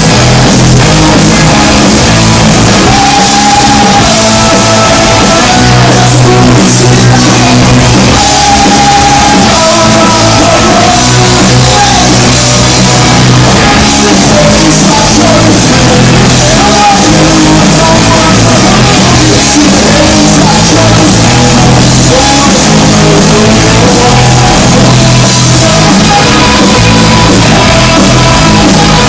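A rock band playing a song live, with a singer over guitar and drum kit, at a steady loud level with no breaks.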